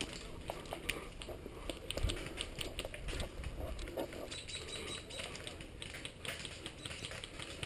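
Footsteps crunching through dry leaf litter and twigs: a run of short, irregular crackles and snaps.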